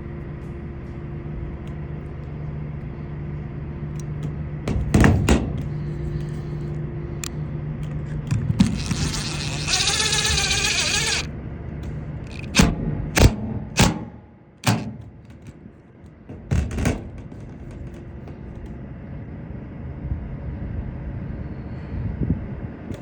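Repair work on a metal roof: several loud knocks, and a power drill or screw gun whirring for about a second and a half midway, over a steady low hum.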